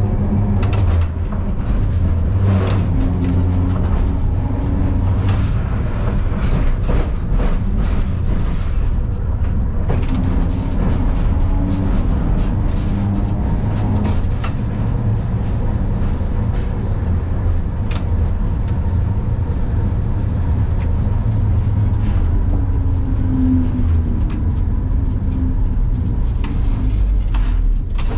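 Vintage tram running, heard from inside the driver's cab: a steady low rumble of the motors and wheels on the rails with a faint steady whine, and frequent clicks and knocks throughout.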